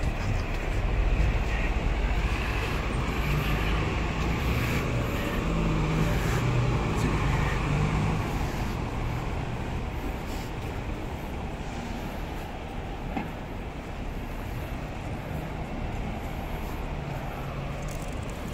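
Street traffic: the diesel engines of double-decker buses running, a steady low rumble that eases a little about halfway through.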